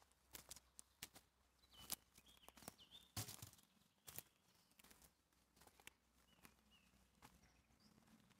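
Quiet footsteps on a dry forest path strewn with twigs and needles: irregular scuffs and sharp snaps, the loudest about three seconds in. Faint bird chirps now and then.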